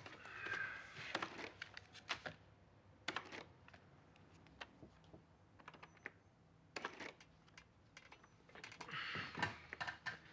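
Keys of a desktop printing calculator tapped in short quick runs with pauses between them: figures being added up.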